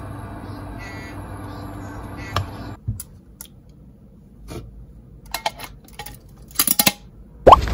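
Kitchen handling sounds: a steady low hum, then after a sudden drop a quieter stretch of scattered light clicks and knocks, like dishes and utensils being handled. Near the end, a short rising squeak and a sudden loud rush of noise.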